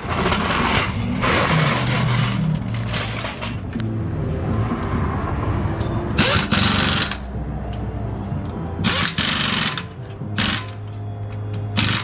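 Pneumatic impact wrench running lug nuts on and off in about seven short bursts, each under a second, over background music.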